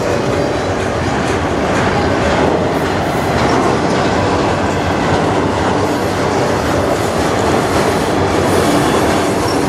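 Freight train of autorack cars rolling past close by: a steady, loud rumble of steel wheels on rail.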